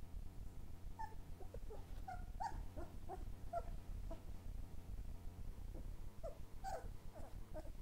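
Three-week-old puppies whimpering: many short, high squeaks and whines, some falling in pitch, over a low steady hum.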